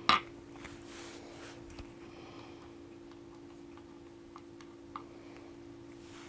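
Small metal clicks from a disassembled Medeco lock cylinder and its pins being handled on a bench: one sharp click at the very start, then a few faint scattered ticks over a steady low hum.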